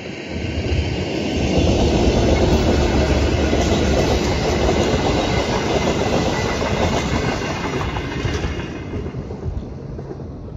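Queensland Rail's Westlander, a diesel locomotive hauling passenger carriages, passing close by: heavy rumble and clickety-clack of carriage wheels on the rails. It swells about a second in and fades near the end as the last carriage draws away.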